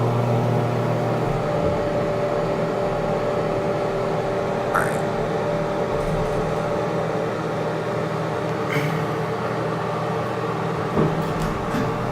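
Hydraulic elevator running on an up trip: a steady hum from the pump motor and car, with a few faint clicks and a light knock near the end.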